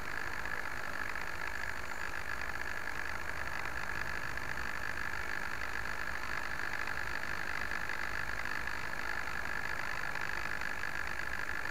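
Steady hiss with a constant high whine that never changes: electrical noise picked up by the downed Bixler 2's onboard camera while it lies still.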